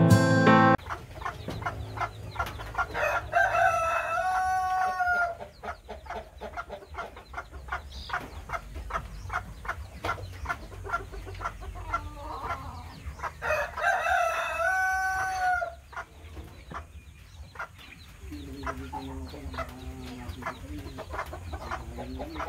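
Bantam chickens: the rooster crows twice, once about three seconds in and again about ten seconds later, over steady rapid clucking, with a lower drawn-out call near the end.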